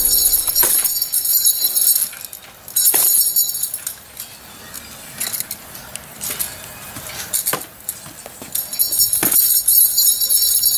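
Metal nunchucks swung and spun, their chain jingling and clinking in stretches, loudest in the first couple of seconds and again near the end, with a few sharp clicks between.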